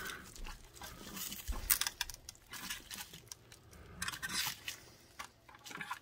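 Faint scattered clicks and light scrapes of fingers handling a circuit board and its chips.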